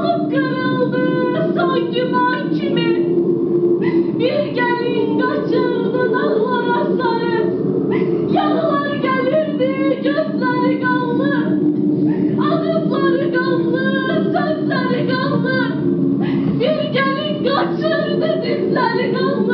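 A woman singing a slow song over steady held accompaniment notes; the voice sustains and bends long notes in phrases with short breaks between them.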